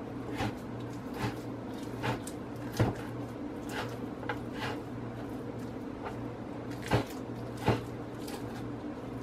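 Kitchen knife chopping raw chicken breast on a wooden cutting board: about a dozen irregular knocks of the blade against the board, with a longer gap in the middle, over a steady low hum.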